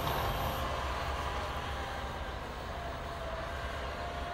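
Caterpillar wheel loader's diesel engine running steadily as the machine pushes snow with its plow blade: a low rumble with a faint whine over it.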